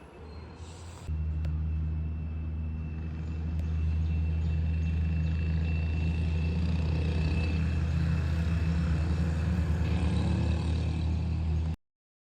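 A low, steady vehicle engine rumble that starts abruptly about a second in and cuts off suddenly near the end, with a faint thin high whine above it.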